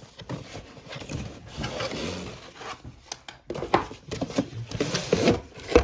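Handling noises of a box being unpacked: rustling and scraping with many light knocks and clicks, busiest in the second half.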